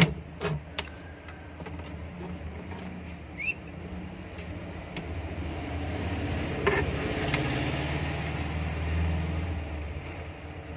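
Exhaust fan motor with freshly fitted ball bearings running on test, a low steady hum. A few clicks come in the first second, and the hum grows louder about halfway through, then eases near the end.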